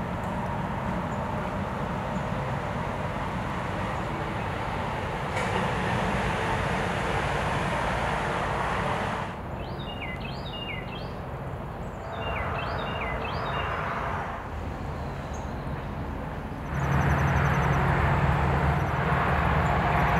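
Outdoor ambience of a steady, distant vehicle rumble. A small bird chirps two quick clusters of short downward notes in the middle, and a louder low engine hum comes in about three-quarters of the way through.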